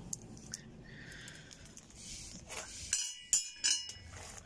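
A few light metallic clinks of loose bolts from a washing machine's transmission mount being handled in the hand. The sharpest, ringing clinks come in a quick cluster about three seconds in.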